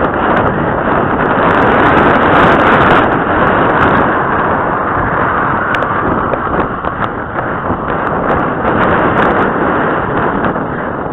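Steady wind rushing over the microphone of a rider's head-mounted camera as the horse moves along at pace. It is loudest in the first few seconds and eases a little after about four seconds.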